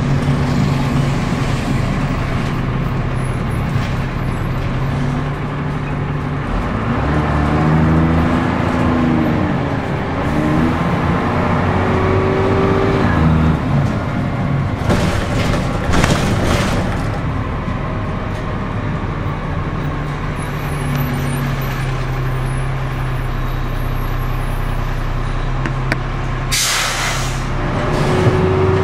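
Diesel engine of a Dennis Dart SLF single-deck bus heard from inside the saloon: a steady engine note, then rising and falling pitch as the bus accelerates. Short hisses of compressed air come around the middle, and a longer, louder air hiss comes near the end.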